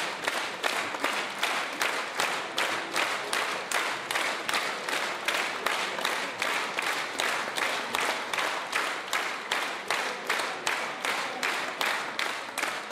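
Concert audience clapping in unison in a steady rhythm, about three to four claps a second, over a wash of scattered applause.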